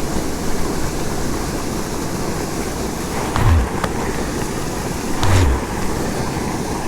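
Steady rushing of water from a gravel pit's discharge pipe, with two brief low thumps about three and a half and five seconds in.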